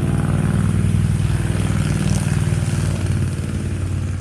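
A motor vehicle's engine running loudly with a steady pulsing note, swelling up and then easing off near the end, like a vehicle passing close by.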